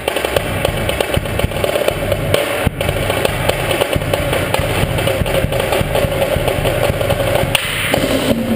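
School drumline and front-ensemble percussion, marimba included, playing loudly: dense rapid drum strokes over a sustained pitched note.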